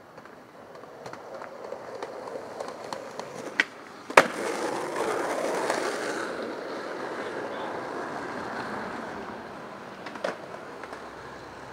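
Skateboard wheels rolling, with a sharp crack from the board about four seconds in. A louder, rougher rolling noise follows for about two seconds and fades, and another knock comes near the end.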